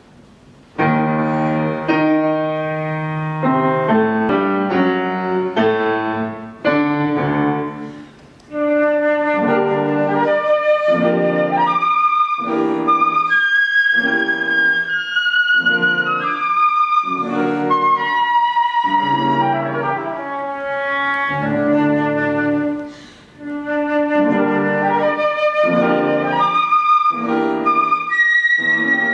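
Classical duet for concert flute and grand piano: the piano opens alone with slow chords, and about eight seconds in the flute enters, playing a melody of long held notes over the piano accompaniment.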